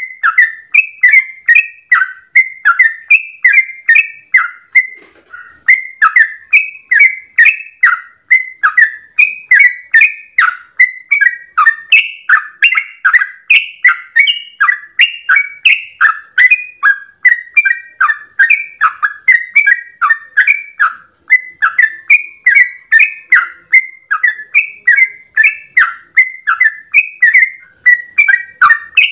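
Yellow-vented bulbul (trucukan) singing an unbroken run of short, quick bubbling phrases, about three a second. This is the non-stop 'ropel' song that keepers play to set other trucukan singing.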